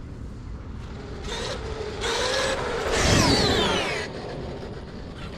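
8S electric RC monster truck running, its motor whine swelling about a second in and loudest near the middle, with the whine falling in pitch as it slows or passes, over a steady outdoor rumble.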